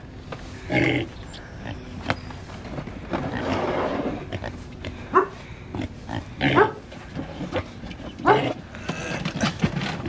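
Pigs calling in several short grunts spread through, with a longer rough, noisy call about three to four seconds in.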